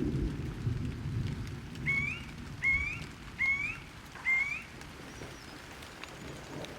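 Thunderstorm: steady rain with low rolling thunder. Through it a bird calls four times in a row, short rising notes about 0.8 s apart, in the middle.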